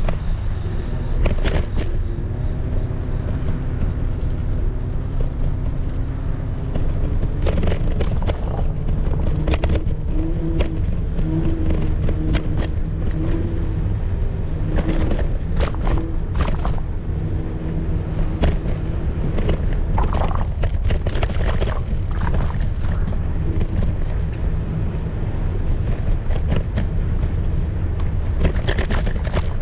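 Small wheels of an electric kick scooter rolling over brick pavers: a steady low rumble broken by many sharp clattering knocks as it runs over joints and metal drain grates. A faint whine comes and goes partway through.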